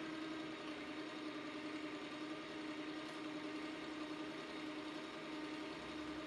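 Dodge-modified, supercharged 1925 Packard 1M-1242 V-12 engine idling steadily.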